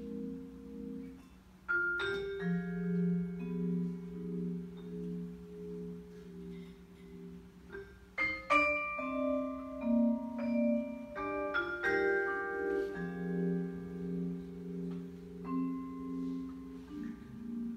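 Solo vibraphone played with four mallets: a blues piece of chords and single notes that ring on and overlap. Fresh clusters of struck notes come about 2, 8.5 and 12 seconds in.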